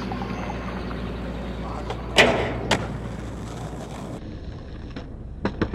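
Skateboard rolling on pavement, with a loud board clack about two seconds in and a smaller one half a second later, and a few quick clacks near the end. The rolling noise cuts off about four seconds in.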